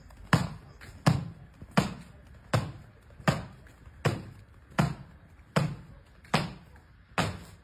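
About ten thuds of a gymnast's hands and feet landing on concrete during a run of back handsprings, evenly spaced at roughly one every three-quarters of a second, each dying away quickly.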